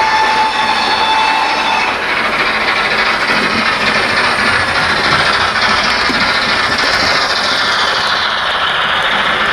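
Recorded steam locomotive sound of a GWR 'King' from a LokSound sound decoder, played through the speaker of a Hornby OO gauge model: a steady, dense working sound with a held tone that stops about two seconds in and a hiss that falls in pitch near the end.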